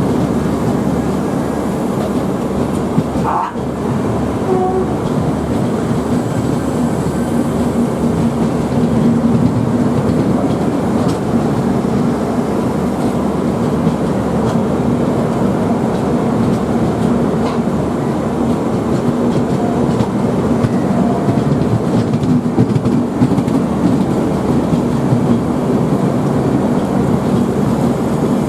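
Passenger express train running through a station at speed without a horn: a steady, loud rumble of coach wheels clattering over the rail joints.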